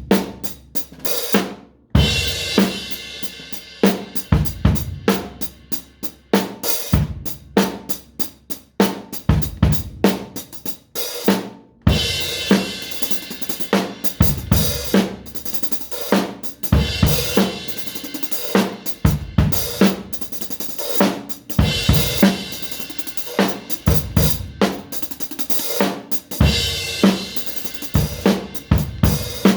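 Drum kit played freely in a loose, irregular groove: bass drum, snare and hi-hat hits, with cymbal crashes ringing out every few seconds.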